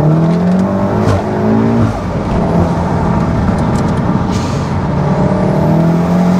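Stage 3 big-turbo MK7 Volkswagen Golf R's 2.0-litre turbocharged four-cylinder accelerating through the gears with turbo and induction noise, heard from inside the cabin. The revs climb, drop at a gear change about two seconds in, then climb again.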